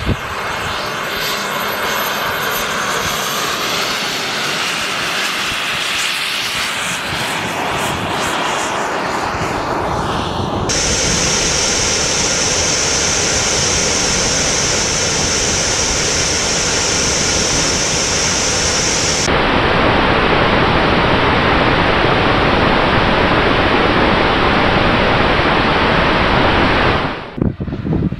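Small jet engine of the MAGMA unmanned aircraft running at high power with rushing air. The sound changes abruptly twice, about 11 and 19 seconds in, the middle stretch carrying a strong steady high whine, and dips briefly near the end.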